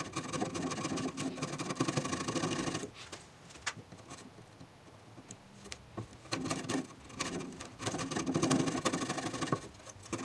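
Wood chisel paring and scraping out a notch in a softwood leg: two spells of rapid scraping strokes, with a quieter stretch between them holding a few light clicks.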